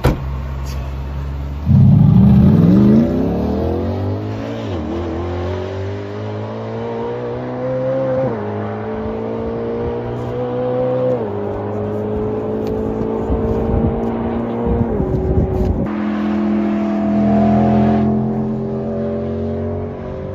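Bugatti Tourbillon's 8.3-litre naturally aspirated V16 at full throttle, accelerating hard through the gears. The engine note climbs and drops sharply at each of four upshifts, and it is loudest in the first few seconds.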